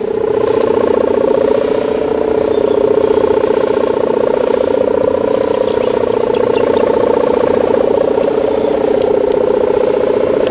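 A kite hummer (Javanese sendaren) with a plastic mika strip, buzzing in the wind as the kite flies: a steady, droning buzz whose pitch wavers slightly.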